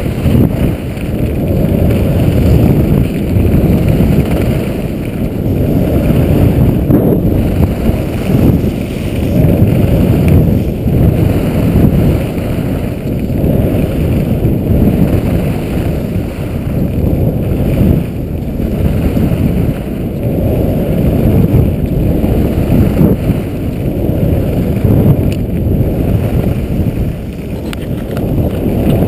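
Wind rumbling over the microphone of a body-mounted action camera while skiing fast down a groomed run, swelling and dipping with no let-up.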